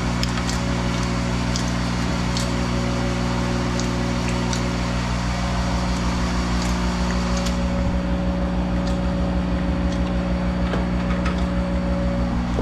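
Monarch 10EE toolroom lathe running with a steady hum, with a few faint light ticks over it.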